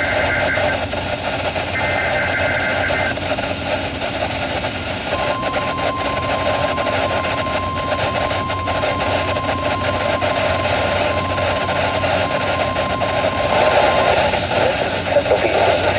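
Emergency Alert System weekly test received over a weather radio with a constant hiss. Two short, screechy digital data bursts (the SAME header) end within the first three seconds. About two seconds later a single steady alert tone starts and holds for about nine seconds before cutting off.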